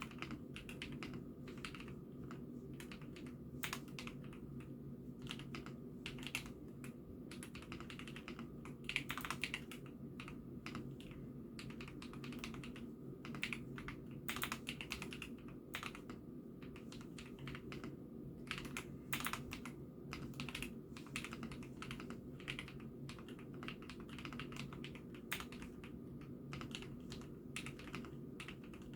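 Continuous typing on an IKKI68 Aurora hot-swap mechanical keyboard: an uneven stream of key clacks at several per second, picked up by a phone microphone, with a low steady hum underneath.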